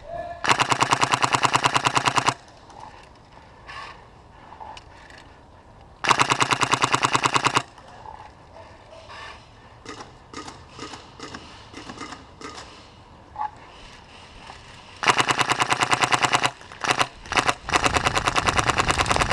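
Polarstar HPA-powered airsoft RPK firing full-auto in four long bursts of rapid pops, with scattered single shots in between.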